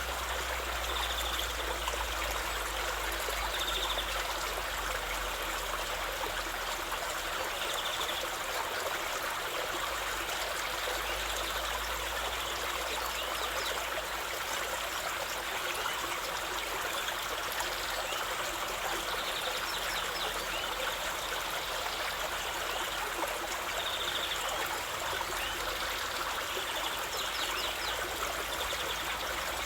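Steady rush of running water from a stream, with short high chirps sounding now and then every few seconds.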